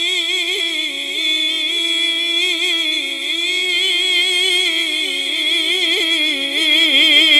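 A man singing a hamd unaccompanied into a microphone, holding one long, drawn-out note whose pitch wavers and turns in ornaments without a break for words. It swells a little louder near the end.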